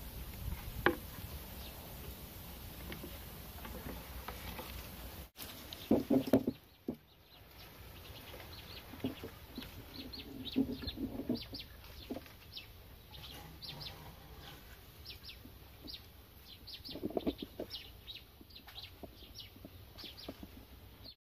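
Chickens clucking in a few short bursts, with many brief high chirps scattered through the later part.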